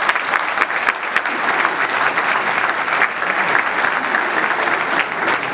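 An audience applauding steadily, many hand claps blurring into one dense patter.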